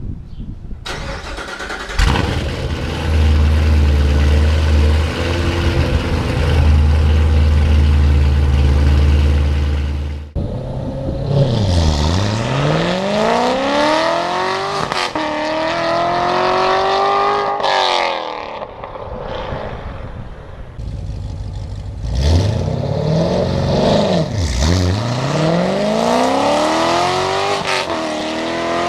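2014 C7 Corvette's 6.2-litre LT1 V8 through Kooks headers and X-pipe, running catless. It fires up about two seconds in and holds a steady idle. After a cut it revs in pulls, its pitch dropping and then climbing again several times as it lets off and accelerates.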